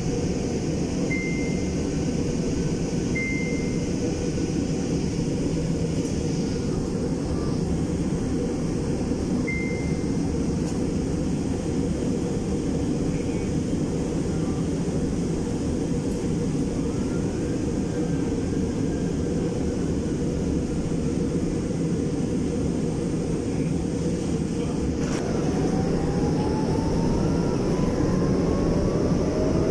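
Inside an MRT-3 light-rail car: a steady low rumble throughout, with a few short high beeps in the first ten seconds. From about 25 seconds in, the traction motors give a rising whine as the train pulls out and picks up speed.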